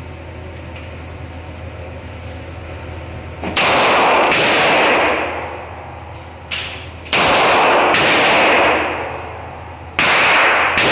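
Beretta 92A1 9mm pistol firing three slow, aimed shots about three seconds apart, each one ringing on in the indoor range for over a second. A fainter crack comes just before the second shot.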